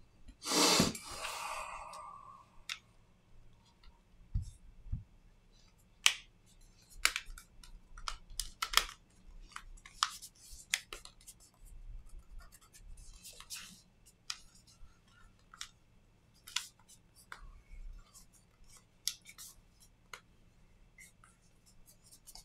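Scattered small clicks and taps of hand tools and plastic phone parts being handled during a smartphone screen repair, with a louder, longer scraping rustle about half a second in.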